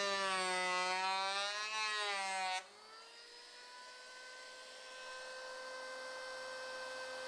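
Electric hand planer running as it cuts a hardwood strip, its motor whining with a slightly wavering pitch. About two and a half seconds in, the sound drops sharply in level and a steadier, higher-pitched motor whine carries on, slowly growing louder.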